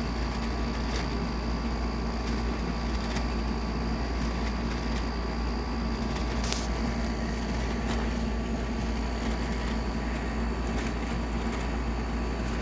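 Air conditioner running: a steady whir with a constant hum, and a few faint ticks, one sharper click about six and a half seconds in.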